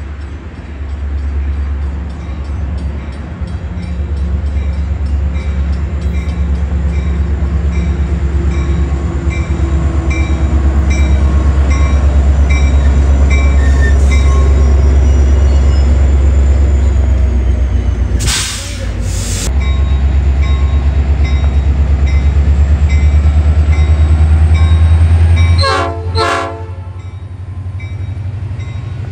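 Metra MP36PH-3S diesel locomotive hauling a bilevel commuter train past at close range: a loud, steady low engine drone with its bell ringing at an even beat. A burst of hiss comes about two-thirds of the way through, and a short horn sounds near the end, after which the engine drone drops away.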